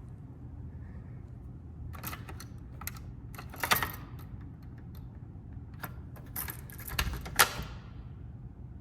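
A scatter of sharp clicks and rattles, like small metal hardware being handled, with two louder knocks, one about four seconds in and one near the end, over a steady low hum.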